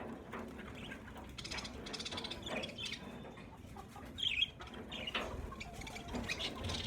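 A flock of budgerigars chattering with scattered short chirps and one loud, sharp call about four seconds in.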